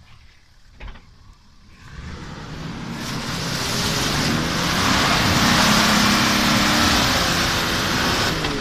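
Nissan Patrol Y60 off-roader's engine working under load as it climbs a muddy slope and comes close past, rising from faint to loud over a couple of seconds and then staying loud. A short knock about a second in.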